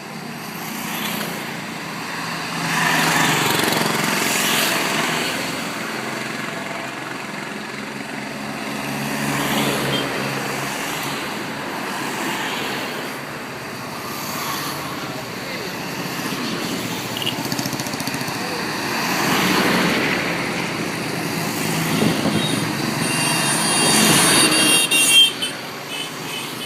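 Street traffic: motor vehicles passing one after another, each rising and fading over a few seconds, with a brief high-pitched tone near the end.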